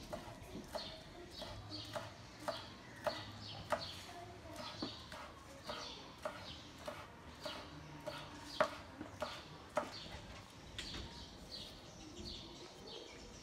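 Kitchen knife chopping spring onions on a wooden cutting board: sharp taps of the blade hitting the board in a steady rhythm, about two a second, one stroke about eight and a half seconds in louder than the rest.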